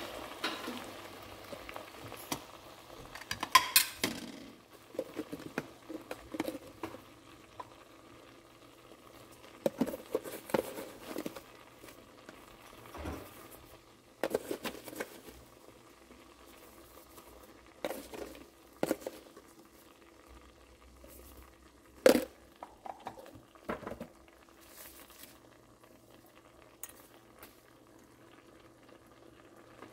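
Dried shrimp simmering in a thin sauce in a nonstick pan, bubbling faintly and steadily. Scattered clicks and knocks of a utensil and containers against the pan break in now and then, the loudest about two-thirds of the way through.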